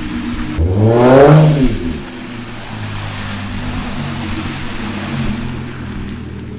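Hyundai Genesis Coupe's engine revving hard under acceleration. The pitch climbs steeply about half a second in, then drops back after a second or so to a steady drone.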